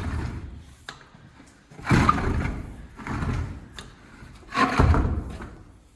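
Knocks and thuds of hands-on building work, two louder bumps about two seconds and five seconds in, each fading over about a second, with lighter knocks between.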